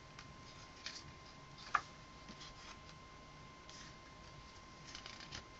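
Pages of a CD album's card-paper booklet being turned by hand: faint paper rustles and soft ticks, the sharpest about two seconds in.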